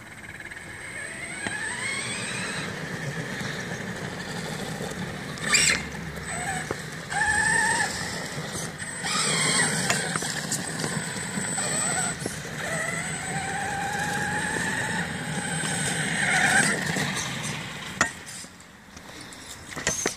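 Traxxas Slash 4x4 electric RC truck on oversized 1/5-scale monster truck tires driving on pavement. Its motor whine rises and falls in pitch as it speeds up and slows, over a steady rumble from the tires. There are two sharp knocks, one about five seconds in and one near the end.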